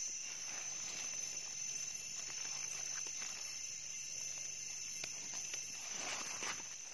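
Insects shrilling in a steady, unbroken high-pitched drone, with a few faint ticks and rustles.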